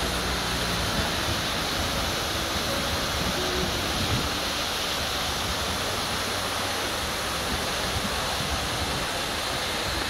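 Bigăr waterfall: water falling in thin streams and a main cascade over a moss-covered rock mound into a pool, making a steady rushing splash.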